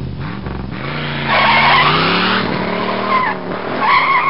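Car engine revving with tires screeching: a long screech begins about a second in and a second, wavering squeal starts near the end.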